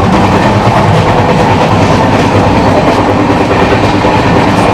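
Passenger train running at speed, heard from inside a carriage: a loud, steady rumble of wheels on the rails and the rattle of the coach.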